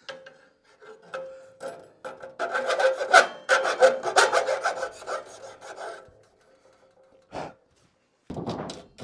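Handheld cordless drill boring a hole with the bit cutting, in several short spurts and one longer run of about four seconds.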